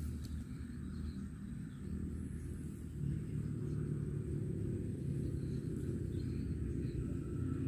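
Outdoor swamp ambience: a steady low rumble that grows a little louder about three seconds in, with a faint, thin, steady high insect tone.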